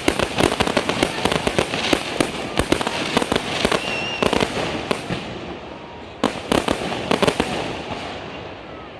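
Aerial fireworks going off in rapid volleys of sharp bangs and crackles, a brief lull a little past halfway, then another dense volley that thins out and fades near the end.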